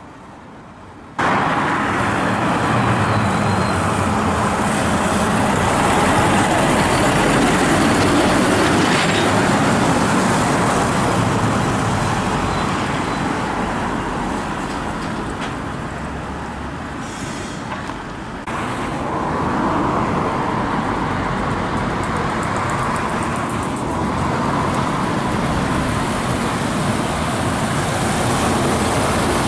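Heavy lorries driving past one after another: diesel engines running under a steady rush of tyres on the road. The sound jumps up suddenly about a second in, eases off slowly, and rises again sharply after about eighteen seconds as the next truck comes by.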